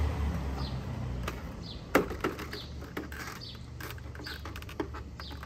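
PVC fence pickets being worked into a plastic rail: several sharp, irregularly spaced clicks and knocks as they snap into place. Faint bird chirps in the background.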